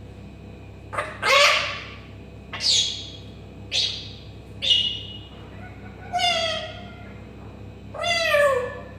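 Pet parrot mimicking a cat, giving a string of about seven meow-like calls a second or so apart, several arching and falling in pitch, one near the start harsher and scratchier.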